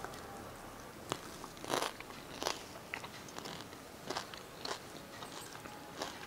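A crispy tomato dosa crunching as it is bitten and chewed. The loudest crunch comes about two seconds in, followed by lighter crunches about every half second.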